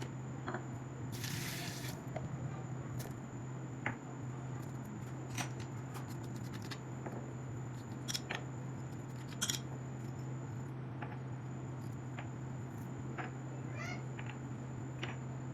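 Scattered light clicks and clinks of kitchen utensils over a steady low hum, with a short hiss about a second in.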